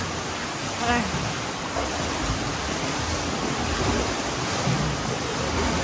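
Steady rushing of water at a swimming pool, an even wash of noise with no distinct splashes.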